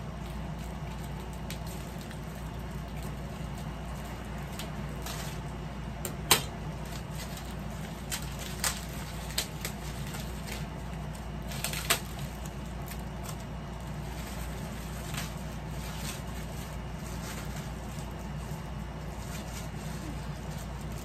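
Wrapping crinkling and rustling as a fishing rod is unwrapped by hand, with a few sharp crackles between about 6 and 12 seconds in, over a steady low hum.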